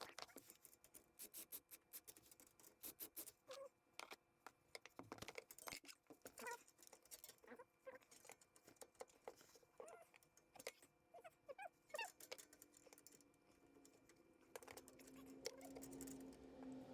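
Faint scattered clicks and light taps of hand tools as a band clamp is fitted and tightened around a cracked exhaust pipe, with a few short squeaks; a low steady hum comes in near the end.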